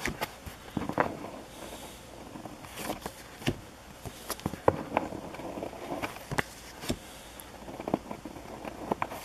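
Panini hockey stickers handled close up: each sticker slid off the front of the stack and snapped onto the back, giving irregular sharp clicks and paper rustling, several a second.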